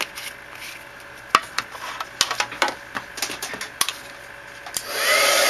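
A few scattered sharp clicks and taps, then near the end an embossing heat tool is switched on and its fan blows steadily, with a brief rising whine as it spins up. It is heating clear embossing powder to melt it.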